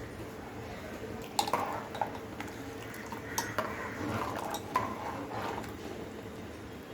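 Metal utensil clinking against cookware while kadhi is being cooked or served: a handful of sharp, ringing clinks in the middle, over a faint steady background.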